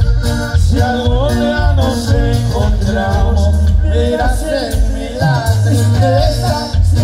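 Live norteño band playing: an accordion-led melody with quick runs over a steady, pulsing bass beat.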